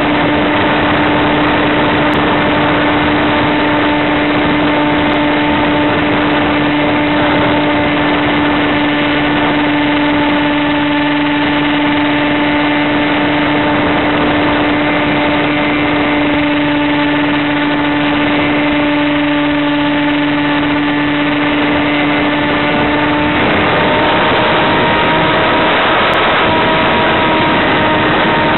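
Electric motor and propeller of a Multiplex EasyStar FPV plane running under power, a steady hum over rushing air, picked up by the onboard camera's microphone. Near the end the hum shifts in pitch as the throttle is eased back.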